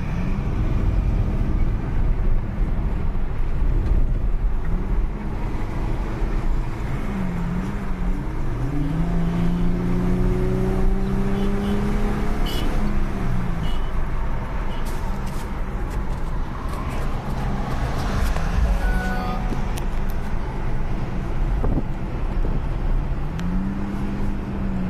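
Infiniti FX35's 3.5-litre V6 pulling under acceleration through an automatic gearbox. Its note rises and then drops back at each upshift, over road and wind noise heard from inside the cabin.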